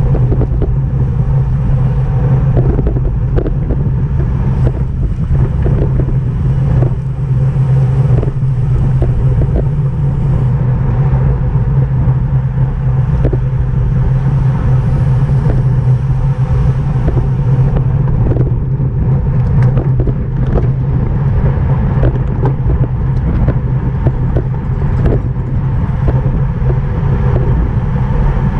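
Steady wind and road rumble from a bicycle moving at race speed, with scattered short clicks and rattles throughout.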